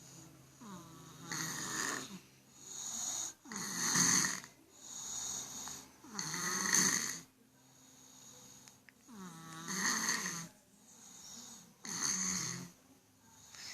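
A child snoring in sleep: a regular rhythm of snores, about one breath every two and a half to three seconds, with quieter breathing between them.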